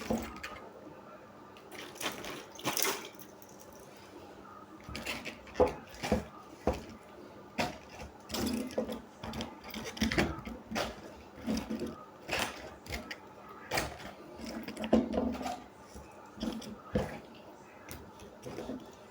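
Irregular clicks, taps and short rustling noises, one every second or so, of things being handled.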